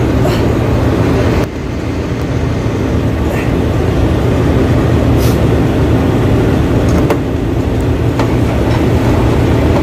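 Steady low drone of rooftop package air-conditioning machinery running, with a few light clicks of a screwdriver on metal.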